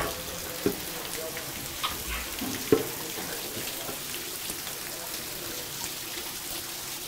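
Water spraying and pouring from leaking pipes onto a flooded floor, a steady splashing hiss. A few short knocks and splashes in the first three seconds as someone crawls through the water.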